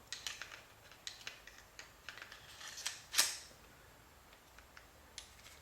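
Small metal clicks and ticks of a Ruger LCP pocket pistol's slide, guide rod and recoil springs being handled during reassembly, with one sharper metallic snap about three seconds in, then a few sparse ticks.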